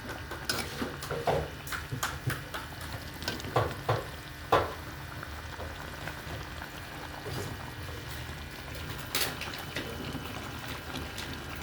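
Spicy chicken feet cooking in a pan with a steady sizzle, stirred with a utensil that knocks and scrapes against the pan several times.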